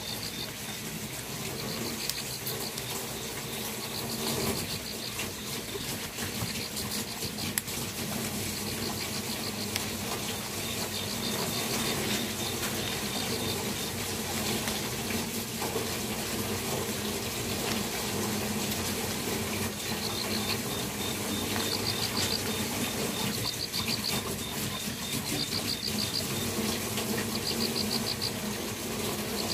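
Insects chirping in short high pulsed trills, one every couple of seconds, over a steady rustle and occasional snaps of leafy vegetable stems being handled and peeled by hand.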